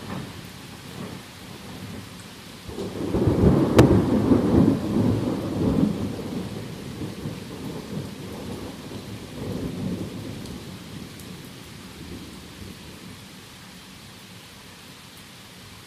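Thunder breaks about three seconds in with a sharp crack and a deep rumble, which rolls on, swells again briefly near ten seconds and fades away. Steady heavy rain falls throughout.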